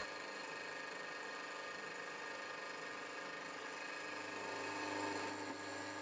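Milling machine running steadily, facing off the uneven top of an aluminium casting, with a low hum joining about four seconds in.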